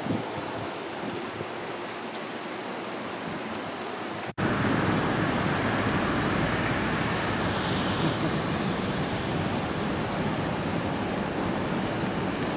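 Steady rushing noise of river water with wind on the microphone. It jumps louder and deeper at a cut about four seconds in.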